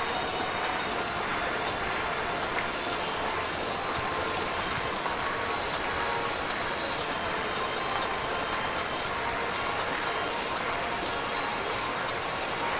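Fast-flowing floodwater running along a street: a steady, even rush of water.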